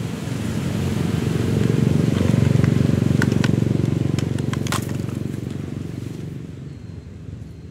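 Motorbike engine passing by, rising to its loudest about two and a half seconds in and then fading away, with a few sharp clicks in the middle.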